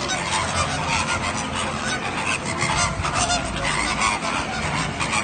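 A large flock of birds calling all at once: a dense, unbroken din of many overlapping honking calls.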